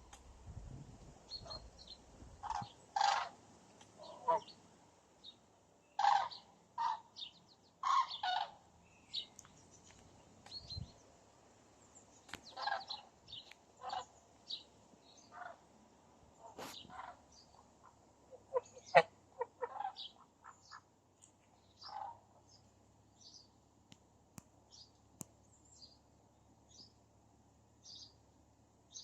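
Herons calling as they fly off overhead, with a pet bird giving the same kind of call back: short calls at irregular intervals, and fainter high chirps between them.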